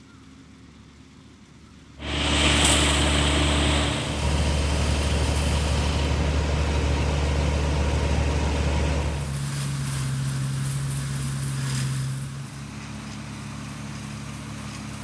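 A rice harvesting machine's engine running, cutting in suddenly about two seconds in with a loud low hum. Its pitch shifts about nine seconds in, and it drops in level near the end.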